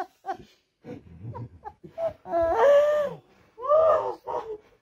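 A woman sobbing and wailing with emotion, with gasping breaths: a few short sobs, then two long wavering cries in the second half.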